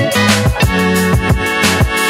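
Intro music with a steady drum beat under held notes.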